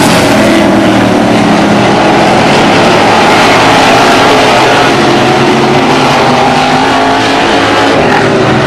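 Several open-wheel modified race car engines running at racing speed, loud, the pitch rising and falling as the pack accelerates and lifts through the turns.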